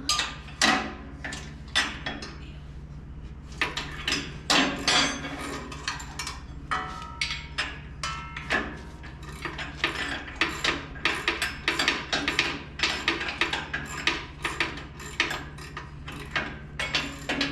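Irregular metallic clinks and knocks of wrenches and steel bolts as the shipping bolts are taken out of a power hammer's base, over a low steady hum.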